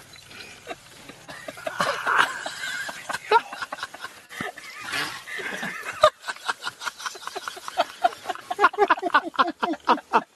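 People laughing hard: scattered exclamations in the first half give way, about halfway through, to a fast, sustained run of short laughs.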